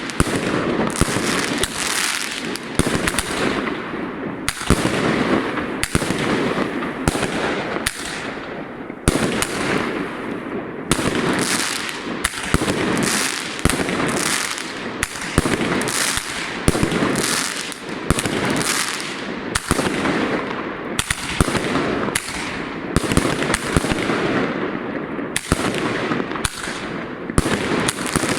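Fireworks going off non-stop: rapid bangs of launches and bursting shells following one another several times a second, with hissing and crackling between them.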